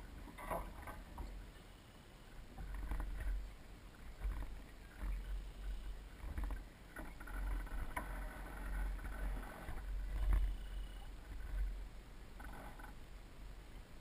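Water lapping and splashing against the small hull of a Soling 1 meter model sailboat under sail, picked up by a camera on its deck, over a steady low rumble. Faint brief whines come in a few times in the second half.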